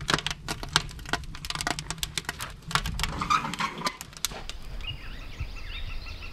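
Wood fire crackling and popping in a log-burning barrel fire pit, with many sharp snaps. After about four seconds the crackling gives way to faint bird chirps.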